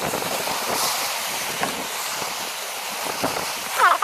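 Wind buffeting the microphone over small waves washing against shore rocks, with a brief high-pitched call near the end.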